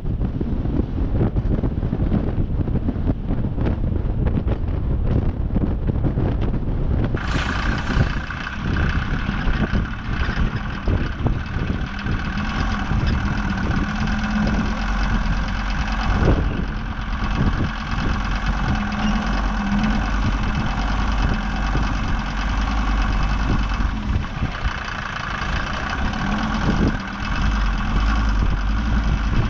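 ARO 4x4's engine running with a steady drone while driving, with wind buffeting the microphone at first. About seven seconds in, the sound changes abruptly to a cleaner, steady engine hum with several held tones.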